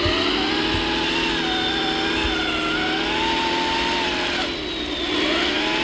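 Radio-controlled scale truck driving through sand: a steady mechanical whine made of several tones whose pitch wavers up and down with the throttle, easing off about four and a half seconds in.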